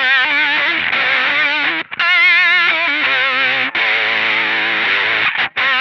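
Electric guitar played through a Kemper Profiler with fuzz, octave and strong vibrato, thinned by an old-telephone-style filter. The distorted notes wobble in pitch, with brief breaks about two seconds in, near the middle, and shortly before the end.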